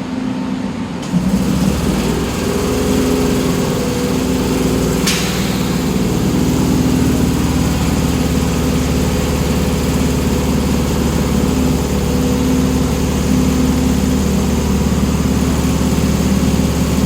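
HB-2000 air compressor on a stationary Tokyu 8500-series electric train, running with a steady, rough mechanical hum. It gets louder about a second in, and there is one brief sharp sound about five seconds in.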